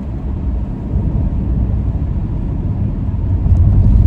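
Road noise inside a moving car's cabin: a steady low rumble that grows louder about three and a half seconds in.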